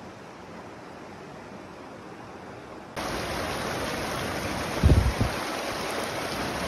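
Mountain creek water rushing over rocks as a steady hiss, which jumps abruptly louder about three seconds in where a small cascade pours into a pool. Just before five seconds, a couple of short low thumps on the microphone stand out as the loudest sounds.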